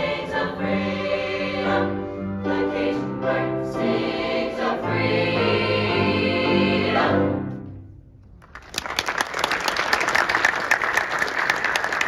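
SATB high school concert choir singing the closing chord, which fades out about seven and a half seconds in. After a short pause, audience applause starts about nine seconds in.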